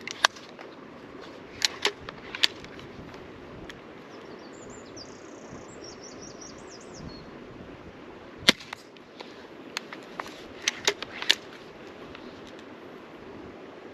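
Magazine-fed pistol crossbow with a 90-pound limb being cocked and shot in turn: a series of sharp snaps and clacks as the string is released and the magazine cycles. The sounds come in clusters, with the sharpest snap about two-thirds of the way through.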